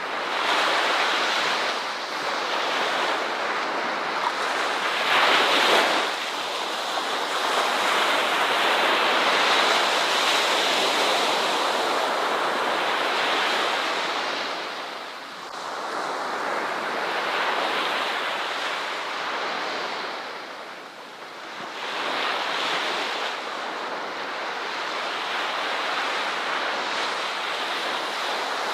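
Ocean waves breaking and washing on a beach, a continuous surf rush that swells and ebbs, with a brief louder surge about five seconds in and lulls near the middle and about two-thirds through.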